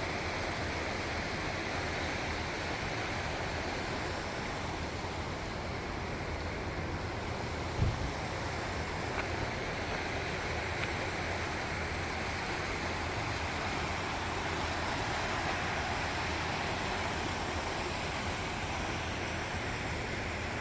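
Steady rushing of a swollen, flood-high river, an even roar of moving water. A single short thump comes about eight seconds in.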